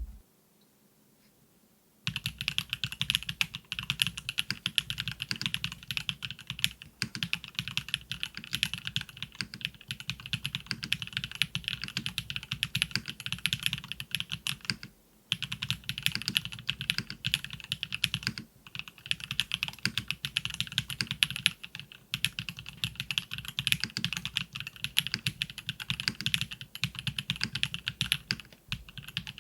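Fast, continuous typing on a mechanical keyboard: a KBDfans KBD8X MKIII fitted with factory-lubed Kailh BCP linear switches. It starts about two seconds in and pauses briefly around the middle.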